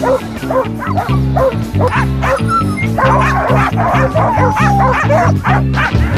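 Background music with a steady, pulsing chord rhythm, laid over a team of sled huskies in harness barking and yipping over and over.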